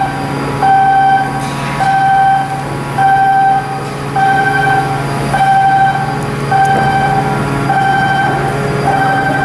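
Electronic warning alarm beeping steadily, one short tone about once a second, over a steady machinery hum.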